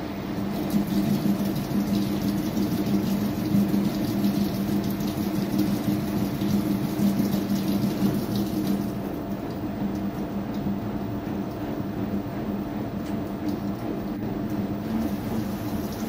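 Front-loading washing machine running: water and clothes swishing in the turning drum over a steady motor hum. It is louder and hissier for the first half, then settles somewhat softer.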